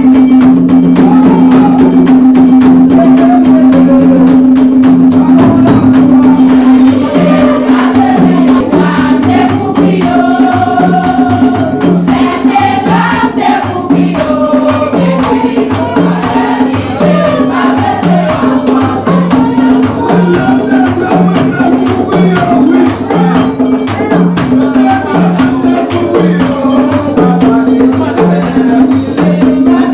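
Vodou ceremony music: drums beating a steady repeating rhythm while a group of voices sings, the singing coming through more clearly from about eight seconds in.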